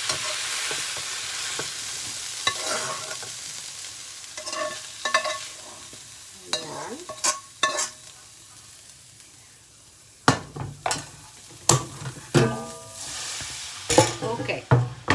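Tofu and vegetable stir-fry sizzling in a hot wok, the hiss fading away as it is tipped out onto a plate. A spatula scrapes and knocks against the wok, with louder knocks in the last few seconds.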